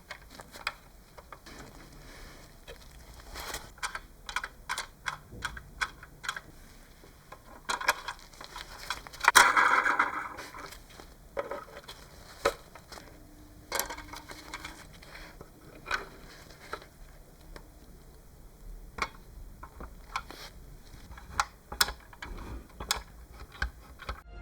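Hand work on car parts: scattered sharp clicks and knocks of tools and metal parts, with light rustling and a louder scrape lasting about a second near the middle.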